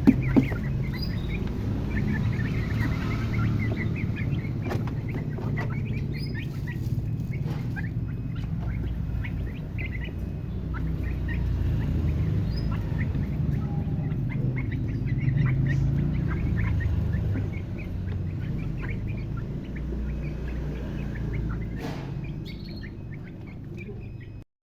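Birds calling with many short, scattered chirps over a steady low rumble, cutting off suddenly near the end.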